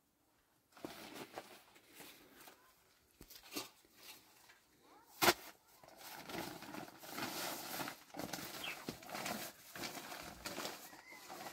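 Handling noises while flatbread is wrapped: scattered light knocks, one sharp knock about five seconds in, then steady rustling of cloth and a plastic bag.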